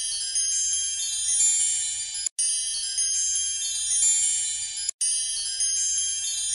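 Twinkling high-pitched chime music on a short loop, with a brief silent gap about every two and a half seconds, twice here, where it restarts.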